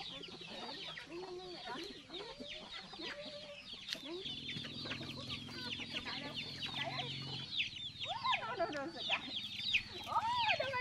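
Chickens in a yard: many chicks peeping nonstop in short, high, falling cheeps, with a hen's low clucks in the first half. A steady low hum joins in for a few seconds in the middle.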